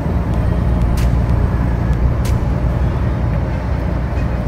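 Scania truck's diesel engine and tyres, a steady low drone of the loaded truck under way. A sharp click sounds roughly every second or two.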